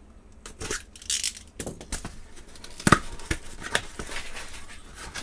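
A small cardboard box being opened with a utility knife: a short tearing, slicing sound about a second in as the tape gives, then several sharp clicks and taps of cardboard and the knife.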